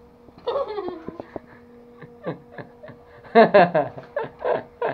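A woman laughing and giggling. Her laughter comes in a run of quick, loud bursts from about three seconds in, after a short vocal sound and a few small clicks earlier on.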